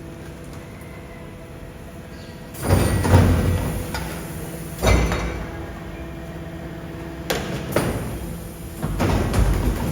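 Garbage truck compactor crushing rubbish: a steady hum from the engine and hydraulics, then loud crunching and banging. The heaviest bursts come between about two and a half and three seconds in and again near five seconds, with more in the last few seconds.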